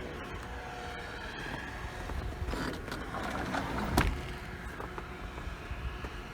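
A motor vehicle passing on the street with its engine running, the noise building from about halfway through. A single sharp knock comes about four seconds in.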